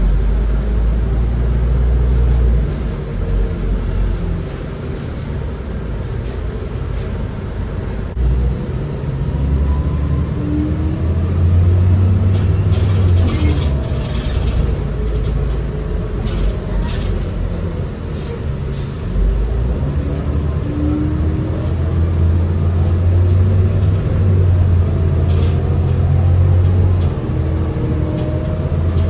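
Interior sound of a 2005 New Flyer C40LF transit bus running on its Cummins Westport C Gas Plus natural-gas engine through an Allison B400R automatic transmission. There is a steady low rumble, and the engine rises in pitch several times as the bus accelerates.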